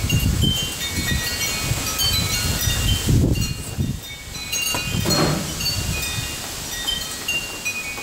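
Wind chimes ringing irregularly at several pitches as strong gusts push them, over wind rumbling in gusts against the microphone.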